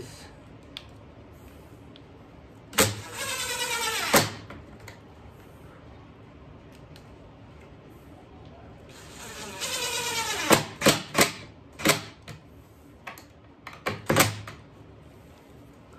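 Cordless drill driving screws into wood, twice, each run about a second long with the motor's pitch falling as the screw bites and tightens. A few sharp clicks and a short burst of the drill follow in the second half.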